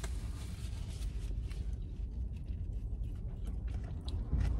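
Quiet eating inside a car cabin: faint chewing and small clicks of food being handled, over a steady low rumble.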